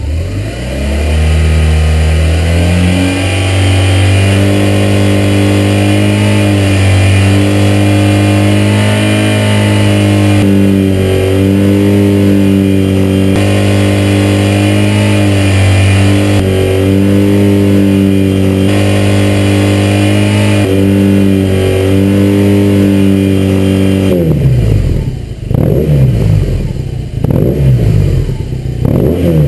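The boxer twin of a 2008 BMW R1200 GS Adventure revved up over a few seconds and held steady at high revs, around 6,000 RPM, through its exhaust pipe. Near the end the revs drop, followed by several quick throttle blips.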